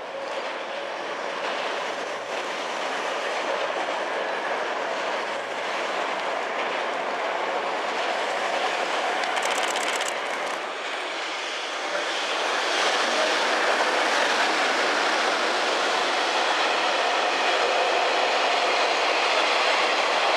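Container freight train hauled by an EH200 electric locomotive rolling past, a steady noise of steel wheels running on the rails. It grows louder over the first couple of seconds and louder again about twelve seconds in as the wagons go by.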